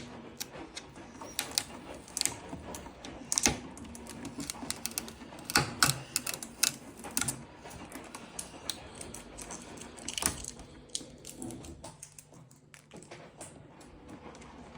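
Irregular sharp clicks and clacks of hard plastic parts being handled, knocked and snapped, as the fridge's water dispenser is taken off and fitted.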